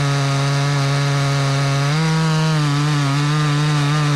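Stihl chainsaw running steadily under load, cutting the down cut of an open-face notch in a silver maple trunk. Its engine pitch steps up a little about two seconds in and wavers slightly after.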